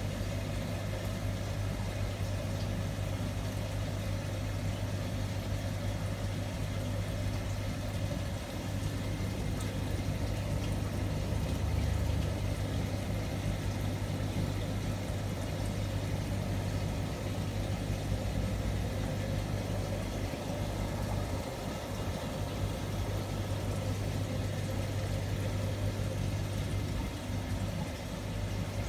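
Steady low hum with constant bubbling from a row of air-driven aquarium sponge filters, air streaming up their lift tubes and breaking at the water surface.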